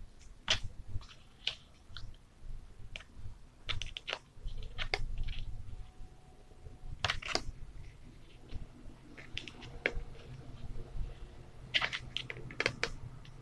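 Handling noise: irregular clicks, taps and rustles of a plastic lid being turned over in the hands close to the microphone, over a low rumble.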